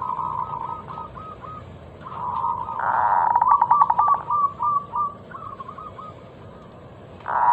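Zebra dove (perkutut) singing its cooing phrases. Each phrase is a fast rolling trill that breaks into a run of short clipped coos. One phrase is trailing off at the start, a full one comes about two seconds in, and the next begins near the end.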